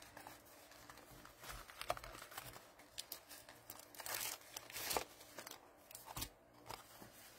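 Packaging crinkling and rustling in short, irregular bursts as a set of paper book treat boxes is handled and one is pulled out of its pack. The loudest rustles come about four to five seconds in.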